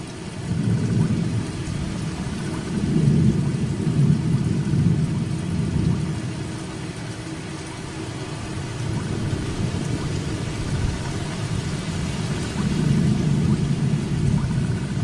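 Steady heavy rain, with low rumbling that swells a few seconds in and again near the end.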